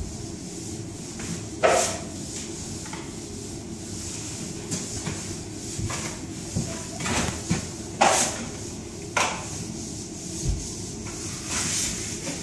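A drywall taping tool scraping joint compound along a drywall wall in a few separate strokes, the loudest about eight seconds in, over a steady low hum.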